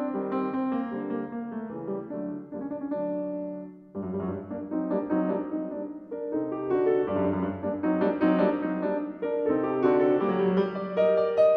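Background piano music, a flowing run of notes and chords. It briefly falls away about four seconds in, then picks up again.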